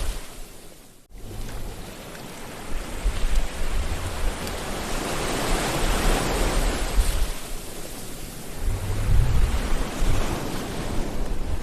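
Sea waves breaking and washing in, the surf swelling and ebbing, with a low rumble underneath. About a second in the sound fades almost out, then cuts back in abruptly.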